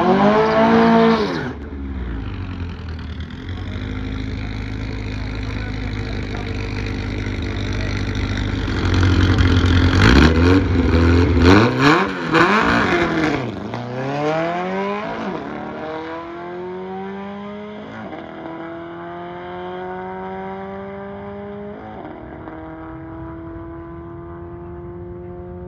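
Drag-racing dune buggy with an exposed air-cooled VW-style flat-four engine, revving hard at the start line. About ten seconds in it launches, then accelerates away down the strip. The engine note climbs and drops back at several gear changes as it fades into the distance.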